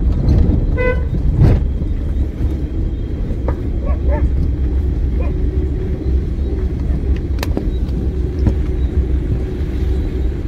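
Maruti Suzuki WagonR being driven, heard from inside the cabin: a steady low rumble of engine and road noise, with a brief pitched sound about a second in and a few light clicks.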